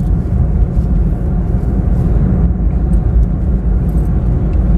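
Steady low rumble of a car on the move: road and engine noise heard from inside the vehicle.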